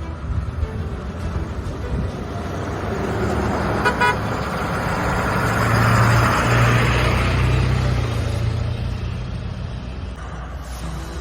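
A road vehicle passing close by: engine and road noise swell to a peak about six seconds in and then fade, over a steady low rumble. A short run of rapid ticks or beeps sounds about four seconds in.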